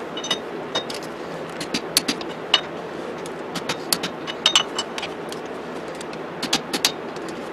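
Click-type torque wrench tightening the wheel hub assembly's mounting bolts to 133 ft-lb: irregular sharp metallic clicks, some in quick clusters, over a steady background hiss.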